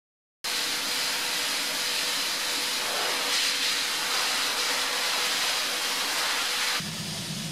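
Shot blasting: compressed air driving medium-grit glass media out of a blast nozzle onto a bare car body shell, a loud, steady hiss. It cuts in suddenly about half a second in. Near the end it drops a little and turns lower.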